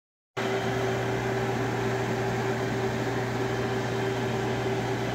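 Microwave oven running with a ceramic crucible inside: a steady electrical hum with a low drone and a higher tone over an even rush of noise, starting abruptly just after the start.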